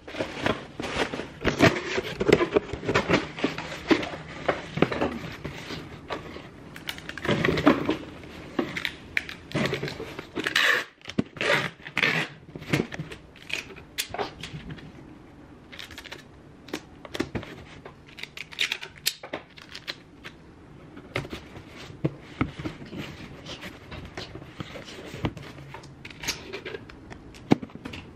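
A cardboard shipping box and its packing being handled while an item is packed into it: rustling and crinkling with scattered clicks and knocks, busier in the first half and sparser later on.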